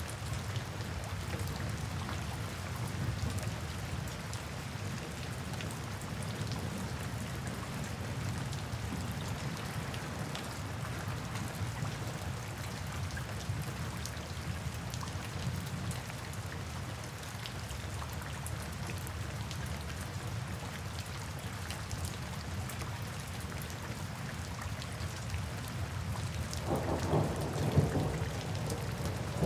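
Steady summer rain falling. Near the end a low rumble of thunder swells up.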